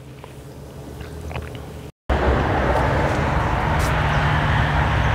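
Faint room tone with a few small clicks, then after a cut about two seconds in, a steady outdoor rush with a low hum underneath, the kind of background noise of a street.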